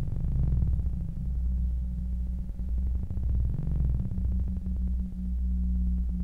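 Electronic film score: low, steady synthesizer drone tones that swell twice.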